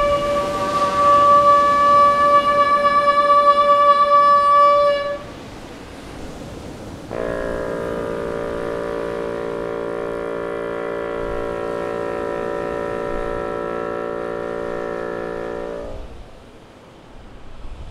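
Bassoon playing two long held notes: a high note for about five seconds that stops, then after a short pause a long low note held for about nine seconds. The sea's surf is heard in the pause and again near the end.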